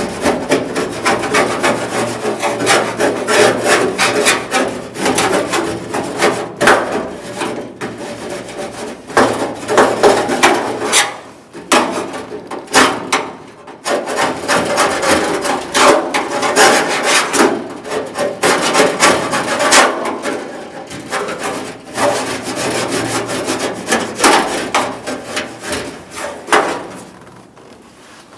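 A hand tool scraping and scrubbing against the steel inner panel of a 1974 Ford F250 door, rapid irregular rasping strokes with a couple of short pauses partway through.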